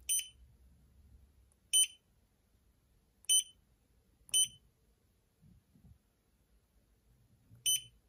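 Five short, high-pitched electronic beeps from a Stone TFT LCD touchscreen module, unevenly spaced, one for each tap on an on-screen button: the display's touch-feedback beep.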